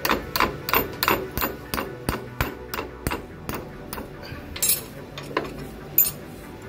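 A hammer striking a thin metal link rod clamped in a cast-iron bench vise: about ten quick blows over the first three seconds, bending the rod to a sharp corner. A few scattered metal knocks and clinks follow as the rod is shifted in the vise.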